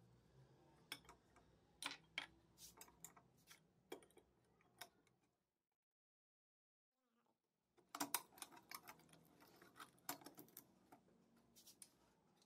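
Sparse, light clicks and taps of the antique lantern's metal parts being handled. They break off for about two seconds of dead silence in the middle, then start again.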